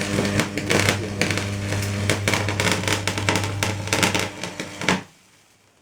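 Electric arc from a stick-welding electrode running on 220 V mains through a salt-water plate resistor, crackling and sputtering over a steady mains buzz. It cuts off suddenly about five seconds in, when the arc breaks.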